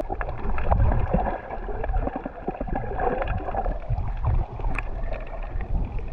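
Muffled water sloshing and gurgling heard by a submerged action camera while a snorkeler swims, a dense low rumble with scattered small clicks.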